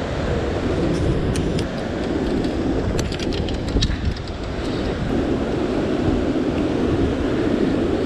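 Steady rush of surf and wind buffeting the microphone, with scattered clicks and crunches of footsteps on sand and stones, mostly in the first half.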